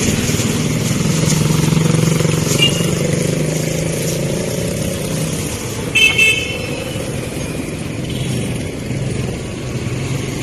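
Motorcycle engine running steadily while riding along a street. A vehicle horn toots twice in quick succession about six seconds in.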